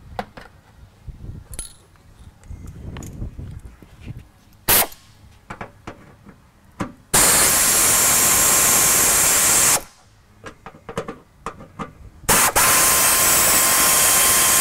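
Pneumatic air ratchet running twice, about two and a half seconds each time, a loud hiss with a thin steady whine, as it backs out the fender well liner's fasteners. Before that come scattered clicks and rustles of the plastic liner being handled.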